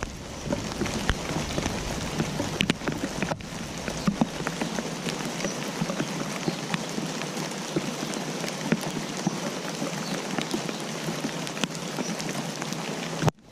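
Steady rain falling, with many separate drops striking close by as sharp ticks over an even hiss. It cuts off abruptly near the end.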